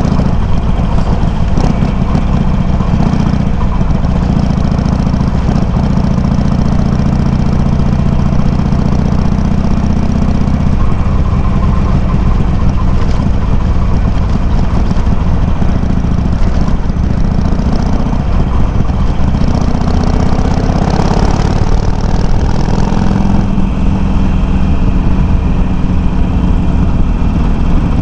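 Harley-Davidson Sportster 883's air-cooled V-twin running under way through Customer aftermarket slip-on mufflers with low baffles, picked up by a microphone mounted on the bike. The engine note is steady, changes about ten seconds in, and evens out again a little after twenty seconds.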